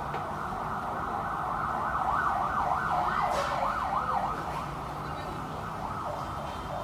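A siren warbling quickly up and down, about three sweeps a second, for a couple of seconds in the middle, over a steady hiss.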